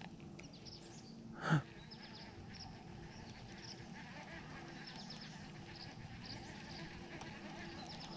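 A faint chorus of short, high, downward chirping animal calls over a steady low hum, with one loud, brief call that sweeps sharply down in pitch about one and a half seconds in.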